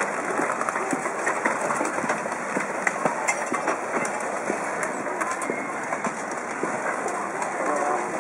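Tsunami floodwater surging through a wrecked town: a steady rushing rumble, with many sharp cracks and clatters as wooden houses and timber debris grind and break against each other.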